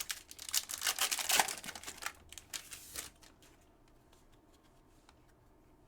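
Foil trading-card pack wrapper crinkling and tearing as it is opened, with dense crackling for about three seconds, then only a few faint handling ticks.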